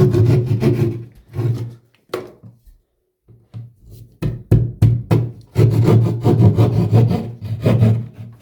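Drywall being cut by hand around a hole with quick back-and-forth strokes. The strokes stop about two seconds in, start again around four seconds, and run steadily through the last few seconds.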